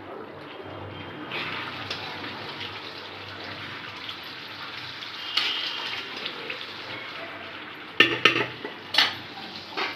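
A steel ladle spreading and scraping chicken masala over rice in a metal pot, over a steady hiss, with several sharp clinks of the ladle against the pot in the last two seconds.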